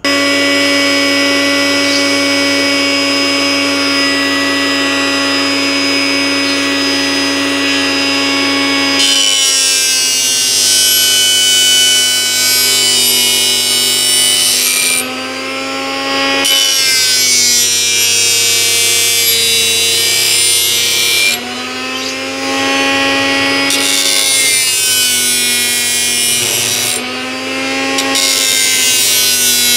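A salvaged blender motor spins an abrasive disc with a steady whine for about nine seconds. Then a steel knife blade is pressed against the disc, adding a harsh grinding hiss while the motor's pitch drops under the load. The blade is lifted off briefly three times, and each time the hiss stops and the motor speeds back up.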